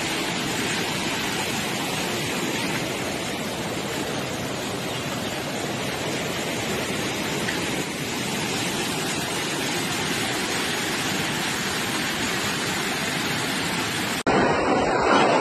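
Steady rushing of water, an even noise with no rhythm, typical of fast floodwater or heavy rain. It cuts off abruptly about a second before the end into a louder, different rushing noise.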